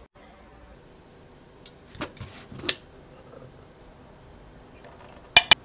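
A metal spoon scraping and clicking against a plastic tub of protein powder, with a few short scrapes about two seconds in. Near the end come two sharp clicks, the loudest sounds.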